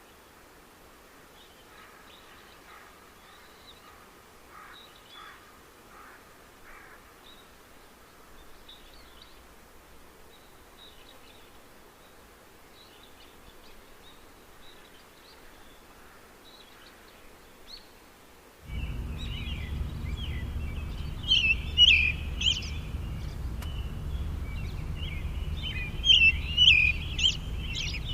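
Songbirds chirping and singing, faint at first. About two-thirds of the way in, a steady low rumble starts abruptly and the birdsong turns louder and busier.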